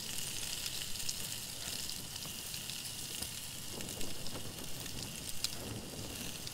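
Food sizzling steadily in a hot frying pan, a high hiss with a few small clicks.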